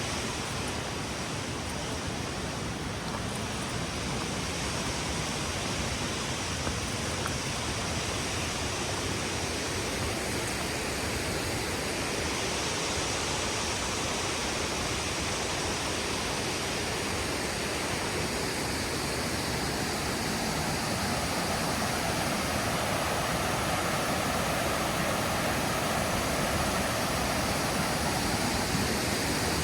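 Steady rushing of a waterfall, getting slightly louder over the last ten seconds or so.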